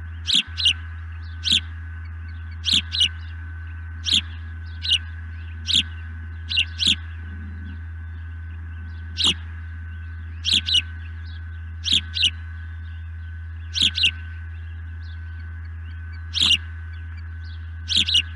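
Osprey calling from overhead: repeated short, high, sharp chirps, often in quick pairs, about one call or pair every second or so. The calling sounds like a male osprey's sky-dance display.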